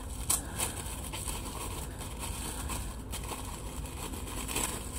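Light rustling and small clicks of paper and packaging as small craft embellishments are handled, over a low steady hum.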